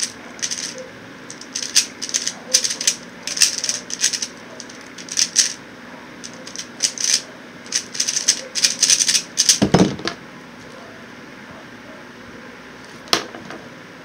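QiYi X-Man Tornado V1 speedcube being turned fast, its layers clicking in quick bursts of turns, ending with a dull thump a little before ten seconds in as the solve stops. A steady fan hum runs underneath, and there is one more click near the end.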